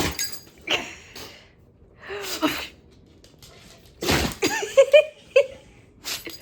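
A dog sneezing again and again, about five sharp sneezes in a row, some ending in short squeaky snorts.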